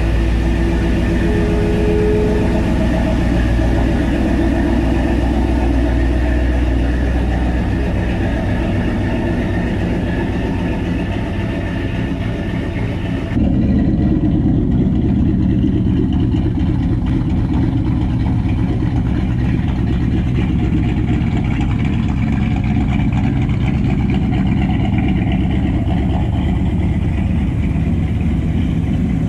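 Chevrolet C1500 pickup's engine running steadily at idle. The sound changes abruptly about halfway through, losing its highest tones, and carries on idling.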